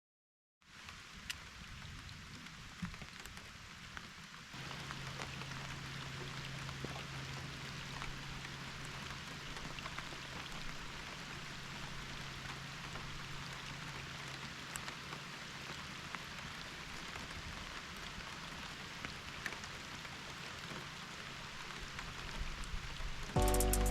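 Steady rain falling, with scattered drop ticks. About four seconds in, a steady low hum from the boat's electric trolling motor joins it. Music starts just before the end.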